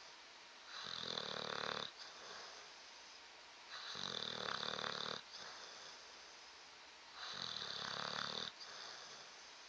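Bulldog snoring in its sleep: three loud snores, each a little over a second long, about every three seconds, with quieter breaths between them.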